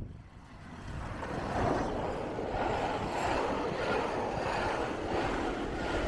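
A passenger train hauled by a steam locomotive passing close by. The wheel-and-rail noise rises over the first second and a half, then holds steady as the coaches go past, with wind on the microphone.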